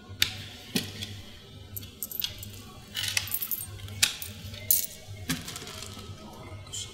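Coins clinking on a shop counter as they are counted out: a string of irregular sharp clinks, with a quick cluster about three seconds in.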